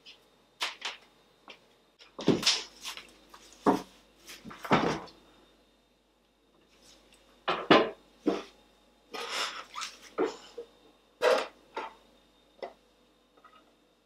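Intermittent household handling sounds: about a dozen separate knocks, clinks and rustles as mugs and kitchen things are picked up and set down, with a short lull partway through.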